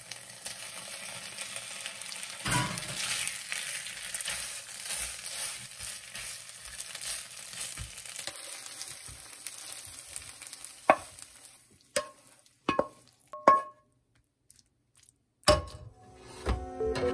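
Tomato sauce with shrimp sizzling in a frying pan as spaghetti is dropped in with a soft thump and stirred through with a spatula. The sizzle fades after about ten seconds, and a few sharp knocks follow as the pasta is scraped out into a bowl.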